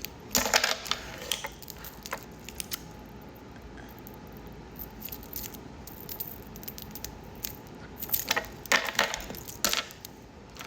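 Metal wristwatches and their link and stretch bands clinking and jangling as they are handled. The sound comes as bunches of sharp clicks: a flurry just after the start, a few near two seconds in, and another flurry from about eight to ten seconds.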